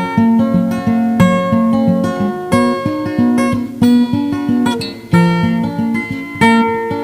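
Acoustic guitar music: a steady run of plucked notes, each starting sharply and fading, with a brief lull about five seconds in.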